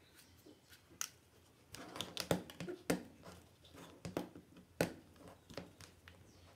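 Handling noise of a small plastic mini hot air gun and its rubber power cord on a cutting mat: irregular sharp clicks and light knocks, thickest from about two to five seconds in.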